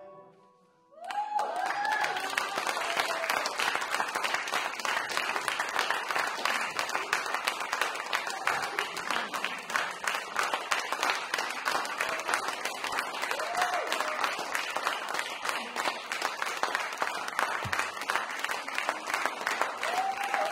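Applause from a small audience breaks out about a second in and keeps up steadily, with a few voices calling out over the clapping.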